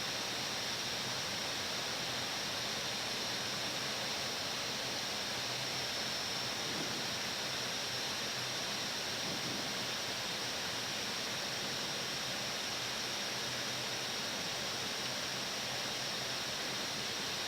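Steady hiss of air rushing past and air-conditioning in an Airbus A320-family airliner's flight deck in flight, even and unchanging.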